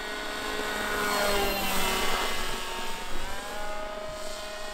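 Electric RC plane's brushless motor and propeller whining in a fly-by: it grows louder toward a peak, then the pitch falls as it passes, about two seconds in, and settles into a steadier, lower drone.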